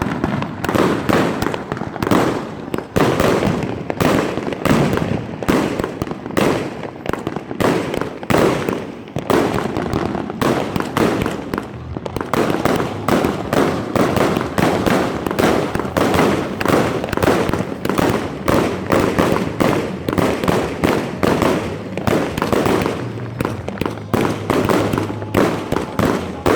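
A 260-shot, 500-gram consumer firework cake firing continuously: a rapid, unbroken stream of shots and bangs, several a second.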